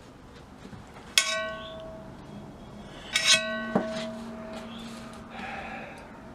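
Metal clinking against metal twice, about two seconds apart, each strike ringing on briefly with a bell-like tone, with a lighter click just after the second.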